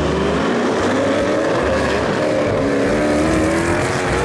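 Two supercars accelerating hard side by side, their engines at high revs, the engine note climbing, dropping back at a gear change about three seconds in, and climbing again.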